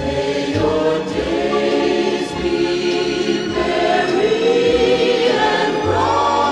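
Background music: a choir singing long held notes over a low bass line.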